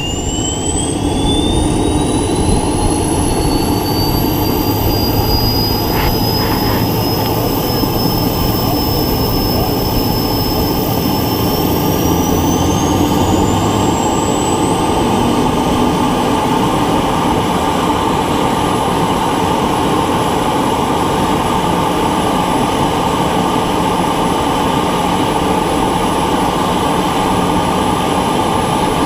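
L-39 jet's starter turbine spooling up during the engine start sequence: a high whine that rises steadily and levels off a little over halfway through, over a steady rumble. A brief click about 6 seconds in.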